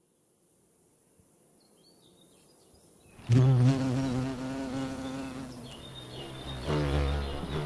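Bumblebee buzzing in flight: a sudden loud, close pass about three seconds in with a wavering pitch, and a second buzz near the end.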